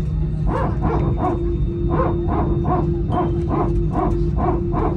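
Airbus A320's hydraulic power transfer unit (PTU) barking: a rapid, even series of dog-like pulses, about three a second, over the steady hum of the engines heard from inside the cabin. The sound is the sign of the PTU passing hydraulic pressure between the aircraft's systems during taxi.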